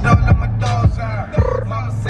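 Hip-hop music with a rapped vocal over a deep, steady bass note and kick drums.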